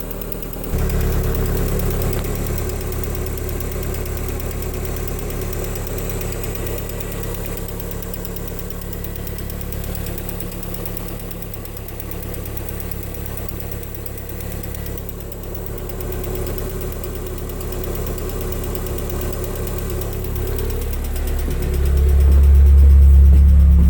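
Lada Kalina 1.4 16-valve four-cylinder engine running at idle with a strange knock that appeared after a morning start; the owner cannot tell the cause. It gets louder about a second in and again near the end.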